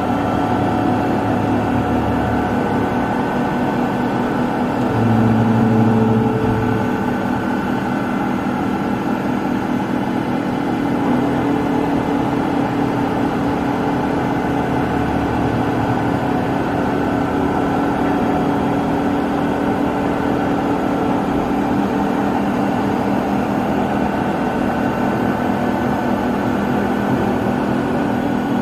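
Soraluce Soramil CNC milling machine running: a steady hum with fixed tones and a fast, grainy rattle. A louder low hum swells briefly about five seconds in.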